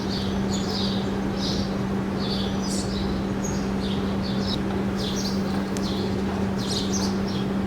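Small birds chirping in short repeated calls, roughly two a second, over a steady low hum.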